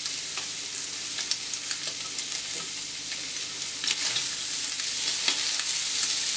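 Pieces of fresh pork fat (salo) sizzling in a hot frying pan, a steady hiss with scattered small pops and crackles as the fat starts to render.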